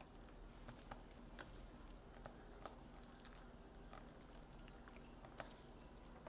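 Faint, irregular sticky clicks and squelches of homemade glue-and-liquid-starch slime being kneaded and folded by hand; the slime is still wet with starch and tacky.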